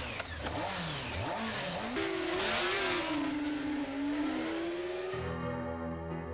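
Honda CBR600 F4 inline-four sport bikes accelerating hard from a standing start, the engine note climbing and dropping again and again as they shift up, then a sustained high-revving note that wavers in pitch. About five seconds in the engines cut off and steady synthesizer music takes over.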